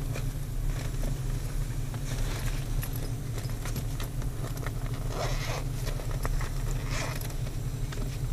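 A vehicle engine idling steadily, heard from inside the cab as a low hum, with clothing rustling and handling noise from the camera a few times, most clearly about five and seven seconds in.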